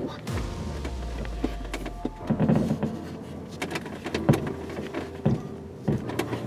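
Distant fireworks going off, heard from inside a car: several separate sharp bangs spaced out, the loudest about four seconds in. A low hum runs under the first two seconds.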